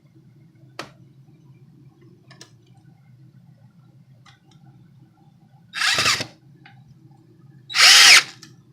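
Two short bursts of a power drill, each about half a second and about two seconds apart, the second spinning up and down, over a faint steady low hum. A single click comes just under a second in.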